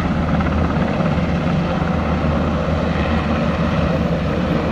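Helicopter flying overhead: a loud, steady rotor and engine drone.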